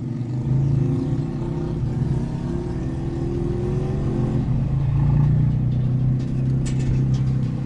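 Volkswagen up! TSI's turbocharged 1.0 three-cylinder engine running with its muffler removed, straight-piped, heard from inside the cabin while driving. The engine note rises for a couple of seconds as the car accelerates, drops a little before the middle, then settles into a steady drone.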